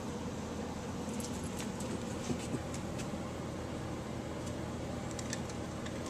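Steady whir of a room fan, with a few faint, sharp ticks between about one and three seconds in and again near the end.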